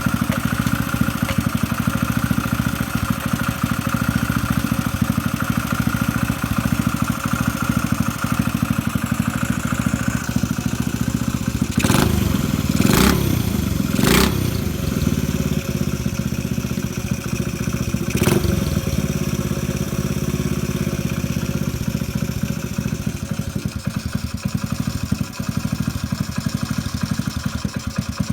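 Honda CD90 single-cylinder four-stroke motorcycle engine running steadily on a running test. A few short sharp knocks come in quick succession partway through and one more shortly after. The engine note eases off near the end.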